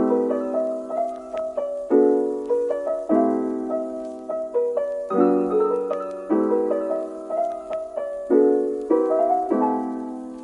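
Background piano music: struck chords and melody notes that fade after each strike, in a phrase that repeats about every four seconds.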